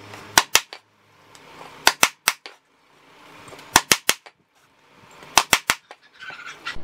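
Hammer driving steel T-nuts into holes in a plywood speaker ring: four quick sets of three sharp strikes, a set every second and a half or so.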